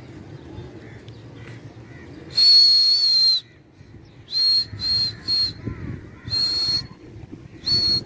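Loud, shrill whistle blown in blasts at one steady pitch: one long blast about two seconds in, then three quick short ones, then two more, the last near the end.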